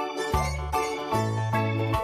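Background music: an upbeat tune of quick, evenly spaced notes over a bass line.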